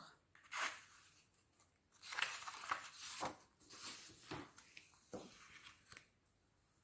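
Sheets of printed paper rustling and sliding as they are handled and repositioned, a string of short, faint scrapes.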